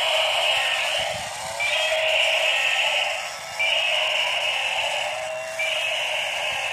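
Electronic sound effects from battery-powered walking toy animals: a high, buzzy electronic sound that repeats in bursts of about a second and a half, one every two seconds, over a lower warbling tone.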